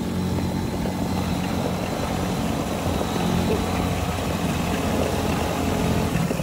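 Motorcycle engine running steadily at low speed, an even hum with no revving.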